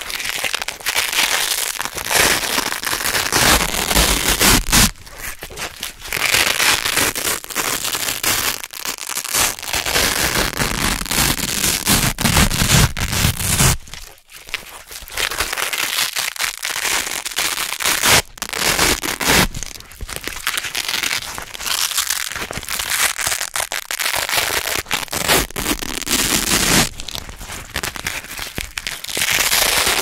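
Velcro (hook-and-loop fastener) being peeled apart by hand in long, loud crackling rips, one after another with brief pauses between pulls.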